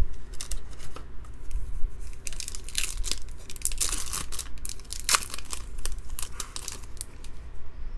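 Foil wrapper of a trading card pack crinkling and tearing as it is pulled from the box and ripped open, a dense run of irregular crackles.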